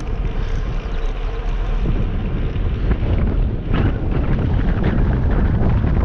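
Wind buffeting a GoPro Hero 7 camera's microphone while riding a single-speed bike along a road: a steady, heavy rumble.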